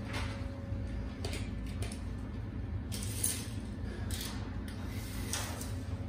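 A steel tape measure being pulled out and laid along a sheet of galvanized sheet metal: a few brief scrapes and rattles spread through, over a low steady hum.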